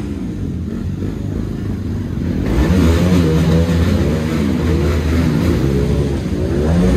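Motorcycle engine running on a ride, its pitch rising and falling with the throttle. Wind and road noise grow louder about two and a half seconds in.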